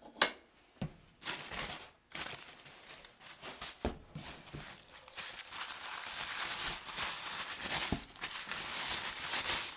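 Packing paper crinkling and rustling as it is unwrapped from around an old hand plane, with a few sharp knocks, the loudest right at the start.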